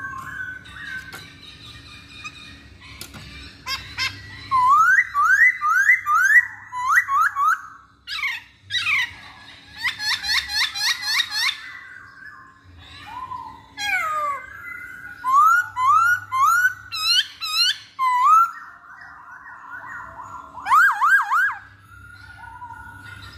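Masked laughingthrush singing: runs of loud rising whistles, four or five in quick succession, repeated several times with short pauses, mixed with rapid high-pitched chattering notes.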